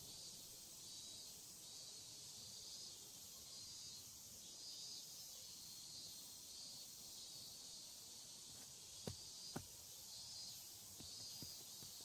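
Faint outdoor summer insect chorus, a high hiss pulsing about once a second. Two short clicks come about nine seconds in, and a few lighter ticks near the end.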